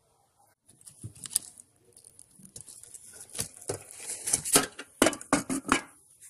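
Handling noise from a cardboard box solar cooker, starting about a second in: plastic and cloth crinkling and rustling, mixed with a rapid run of clicks, clinks and knocks. These come as a stainless-steel pot with a glass lid is lifted out with a cloth and set down on concrete, and they are loudest near the end.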